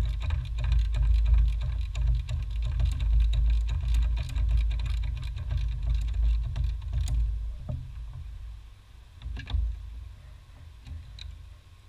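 Small clicks and taps of hands and tools working on a car's brake master cylinder and lines in the engine bay, over a steady low rumble that drops away about seven seconds in. A few sharper clicks come near the end.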